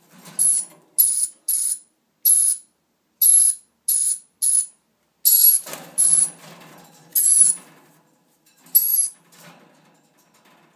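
Dusky lory giving a run of about ten harsh, shrill, rasping screeches, one every half second to second, falling silent near the end.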